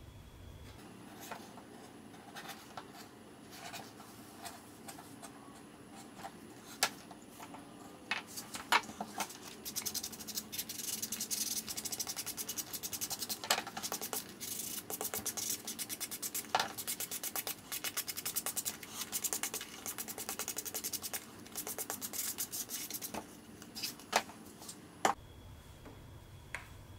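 Rubbing and scratching from hand work on leather. Scattered sharp clicks, then a long dense run of fast scraping clicks through the middle.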